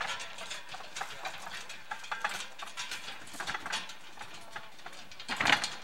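Wooden handcart clattering and rattling as it is pulled over rough, uneven ground, a steady run of irregular knocks with a louder clatter about five and a half seconds in.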